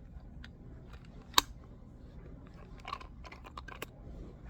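Small clicks and taps of a phone camera being handled and set on a tripod: one sharp click about a second and a half in, then a quick run of light clicks near three to four seconds.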